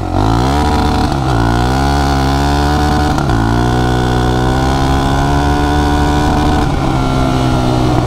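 Suzuki LT-Z400 ATV's single-cylinder four-stroke engine pulling under acceleration. Its pitch climbs and drops sharply twice, about a second in and again about three seconds in, as it shifts up, then holds steady.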